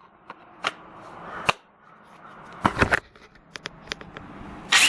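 A cordless impact wrench being handled: sharp plastic clicks and rattles as its battery pack is fitted, with rustling, a couple of louder scrapes near the middle and a short loud burst of noise just before the end.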